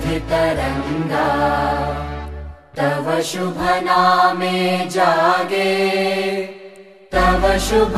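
Voices singing a devotional prayer song in unison over a steady low instrumental accompaniment. The music breaks off briefly about a third of the way in, then fades to a short gap near the end before starting again.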